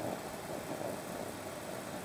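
Steady hiss and rumble of a litre of water heating in an aluminium pot over a soda-can groove alcohol stove, with bubbles starting to form on the bottom of the pan well before the boil.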